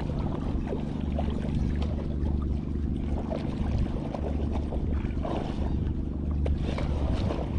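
Boat engine running steadily at a low, even pitch, with faint scattered ticks over it.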